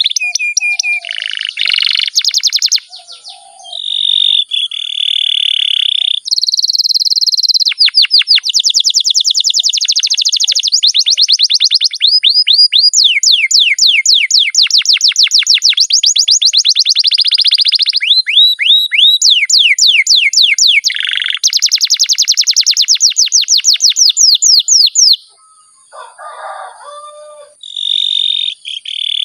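Domestic canary singing a long rolling song: high, rapid trills of quick falling notes, about ten a second, in long unbroken runs, with a brief pause near the end.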